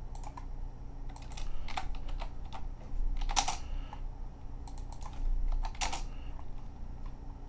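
Computer keyboard typing: scattered, irregular key clicks, two of them noticeably louder, over a steady low hum.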